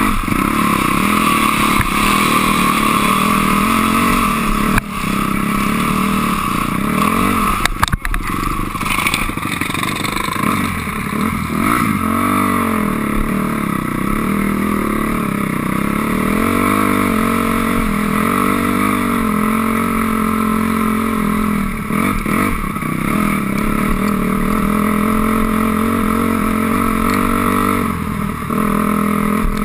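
A 2006 Honda CRF250R's single-cylinder four-stroke engine revving up and down as it is ridden over rough trail, with sharp knocks about five and eight seconds in.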